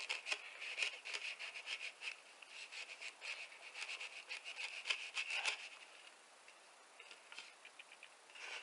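An Ozark Trail Flipper folding knife slicing through sisal rope: a rapid crackle of fibres snapping and rasping under the blade, which stops about five and a half seconds in, followed by a few faint ticks.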